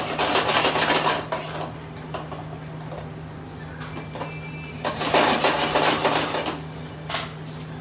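Metal ladle scraping and stirring rice in a steel wok, in two spells of rapid scraping with a few sharp knocks, over a steady low hum from the kitchen extractor hood.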